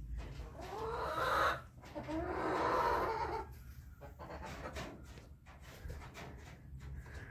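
A chicken calling twice in the first few seconds, each drawn-out call lasting about a second.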